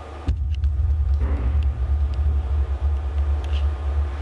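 Deep, wavering rumble from piezo contact pickups on metal ceiling wires, amplified, setting in abruptly a moment in, with a few faint ticks above it.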